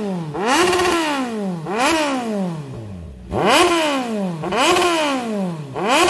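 Motorcycle engine being free-revved about five times, each blip climbing quickly in pitch and then falling away more slowly as the revs drop.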